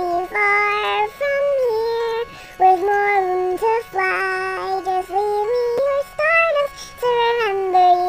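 A Vocaloid synthesized female singing voice singing the song's melody in a series of held notes that step up and down in pitch.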